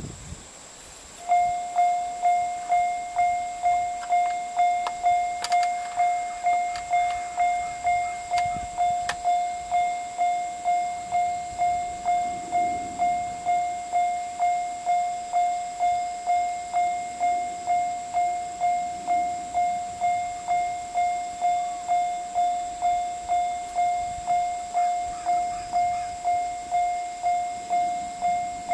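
Railway level-crossing warning bell ringing, starting about a second in: a clear, single-pitched ding repeated steadily about twice a second, each strike fading quickly. It is the crossing alarm signalling an approaching train.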